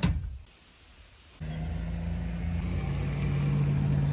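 A single click at the start, then a quiet stretch, then an engine sets in suddenly about a second and a half in with a steady low hum, its pitch stepping down a little partway through.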